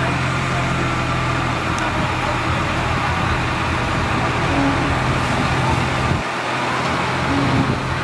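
Heavy diesel engine of an earthmoving machine running steadily, with a short dip in its low note about six seconds in.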